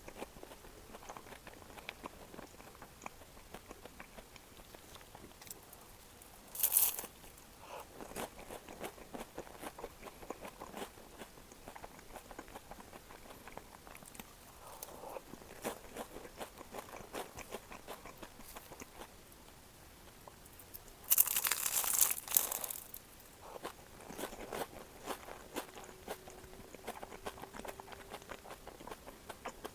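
Close-miked eating of pastry tarts: crisp crunching bites and chewing, with a loud crunch about seven seconds in and a longer burst of loud crunching about twenty-one seconds in.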